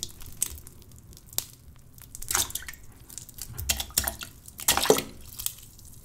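Lumps of thick cooked oatmeal dropped by hand into a toilet bowl's water, landing in a series of irregular plops and splashes, the loudest near the end. This is a foley imitation of poop dropping into toilet water.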